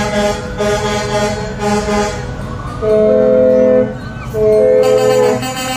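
Two long blasts of a multi-tone vehicle air horn, each about a second long and a short gap apart, starting about three seconds in, over music. Before the blasts the music has short notes repeating about twice a second.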